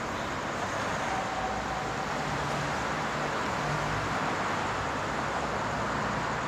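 Steady drone of city road traffic, an even wash of noise without distinct events.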